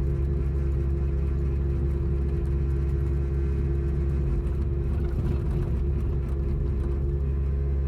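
Diesel engine of a Kubota KX80 mini excavator running steadily with a deep hum, with a slightly rougher, noisier stretch about five seconds in. There are no hammer blows.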